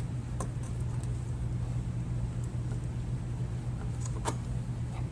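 Steady low mechanical hum, with a few faint clicks and scrapes as a push-lock hose is worked up onto a barb fitting.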